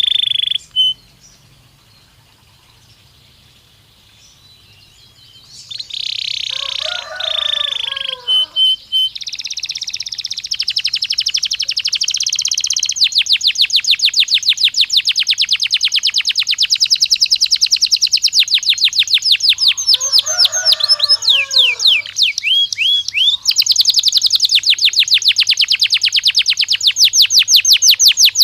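Domestic canary song: after a few seconds of near quiet, high buzzy trills, then long, fast rolling trills of rapidly repeated high notes. A lower warbling call sounds twice underneath.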